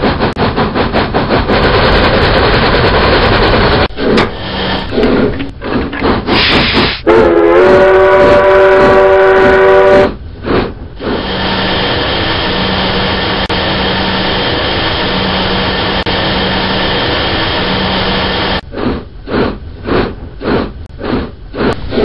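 Steam locomotive sounds: rhythmic exhaust chuffs, then about seven seconds in a multi-tone steam whistle blast lasting about three seconds. A steady hiss with an on-and-off low hum follows, and the chuffing starts again near the end.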